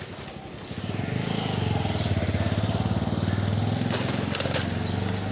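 A small motorcycle engine running as the bike rides up close and passes, growing loud about a second in and staying close through the rest. A few short clicks or rattles come about four seconds in.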